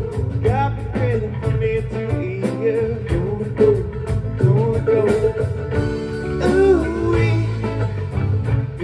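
A live band of drums, bass, electric and acoustic guitars and mandolin playing an upbeat rock song over a steady beat, with a melodic lead line on top.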